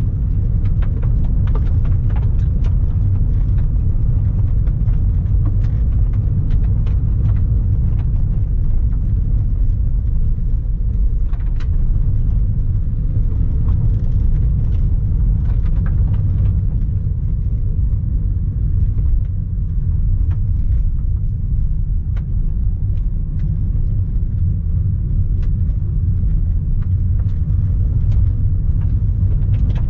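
A car driving along a gravel road: a steady low rumble of tyres and engine, with frequent small sharp ticks and knocks scattered through it.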